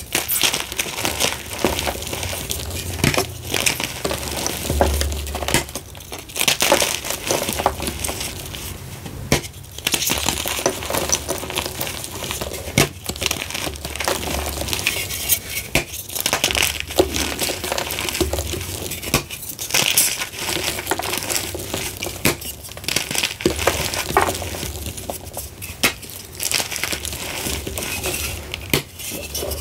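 A dried slab of reformed gym chalk crushed and crumbled by hand, with dense crunching and crackling as chunks break apart and powder falls.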